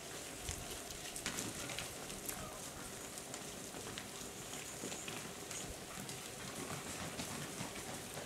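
A crowd of vultures feeding and squabbling over a carcass: a steady crackling and rustling of wings and bodies, with scattered sharp clicks.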